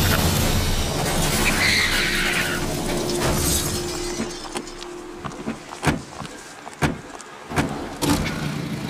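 A vehicle skidding with a tyre screech, followed by several separate sharp knocks or clatters.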